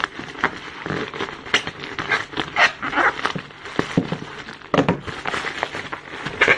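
Black plastic courier mailer crinkling in short irregular bursts as it is handled and pierced with a blade to cut it open.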